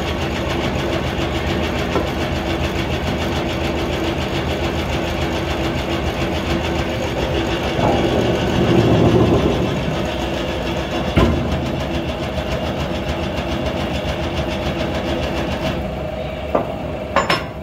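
Hydraulic press power unit running steadily, with a louder stretch for a second or so about halfway through. A sharp metal knock comes a little later, and a few clicks come near the end.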